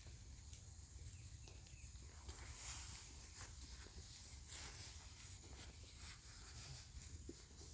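Faint rustling and light clicks of chainsaw chaps' leg straps and buckles being tightened, over a low rumble.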